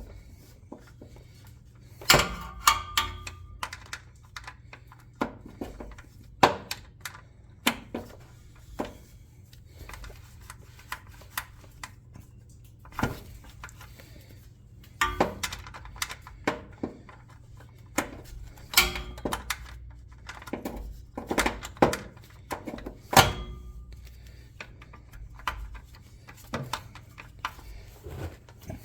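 Irregular clicks, clanks and knocks of hand tools and metal parts being handled during work on a car's shifter console, some in quick clusters, with a few louder knocks.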